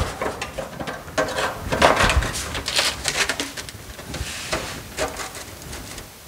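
Thin aluminum sheet being slid and positioned in a sheet metal brake: irregular rustling and scraping of the sheet, with a few light taps against the brake, busiest in the first half and thinning out near the end.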